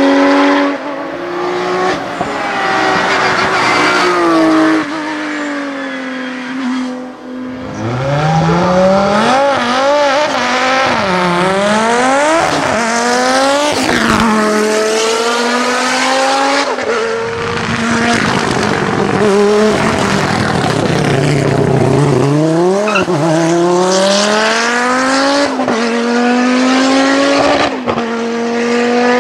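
Race car engines at full throttle. A Porsche 991 Cup car's flat-six fades as it pulls away. About seven seconds in, an Audi 80 race car revs up through a string of quick gear changes, the pitch climbing and dropping again and again, and more rising revs from cars further up the hill follow.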